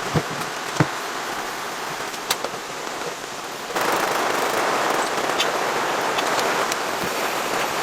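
Steady rain with scattered sharp drop impacts. About three and a half seconds in it switches abruptly to a louder, denser rain hiss.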